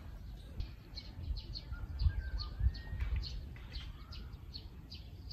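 Small birds chirping repeatedly, short high down-slurred notes several times a second, with a few thin whistled notes mixed in. Under them runs a low rumble, with two soft thumps about two and three seconds in.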